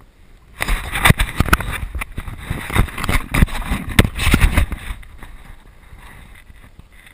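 Handling noise from an action camera being turned around: rubbing, bumps and sharp clicks on its housing, loud for about four seconds and then settling to a faint rustle.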